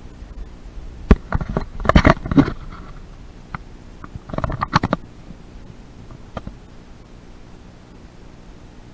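Knocks and clatter of someone moving about on metal tube scaffolding and its boards, in two short bursts about a second in and about four and a half seconds in.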